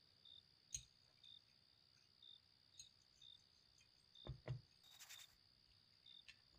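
Faint crickets chirping, short chirps at one high pitch about once a second, over near silence. A couple of soft knocks sound about four seconds in, and a brief hiss about a second later.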